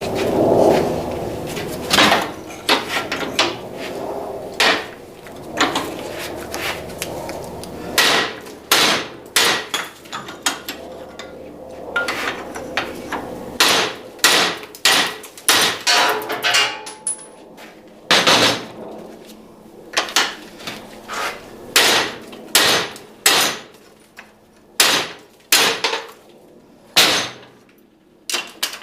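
Hammer blows on steel, a rusty U-bolt and its bottom plate clamped in a vise being beaten to work the old bolt loose. The strikes come irregularly, many times over, some with a short metallic ring.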